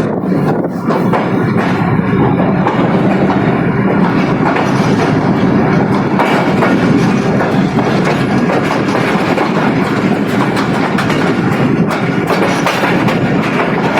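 Train on the move, its wheels clattering steadily over the rail joints.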